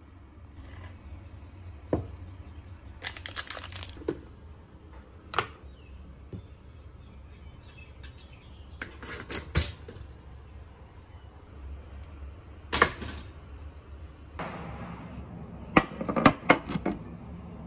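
Kitchen handling sounds: scattered clicks, clinks and knocks of a glass, a toaster and plates being handled and set down on hard surfaces, over a steady low hum. The sharpest knocks come about halfway through and again near the end.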